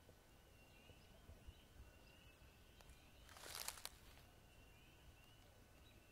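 Quiet wetland ambience with faint, short rising chirps repeating about twice a second, and a brief crunching rustle about three and a half seconds in.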